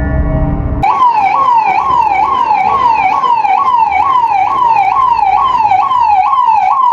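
Ambulance siren cutting in about a second in and cycling fast, each note jumping up sharply and sliding back down, about twice a second.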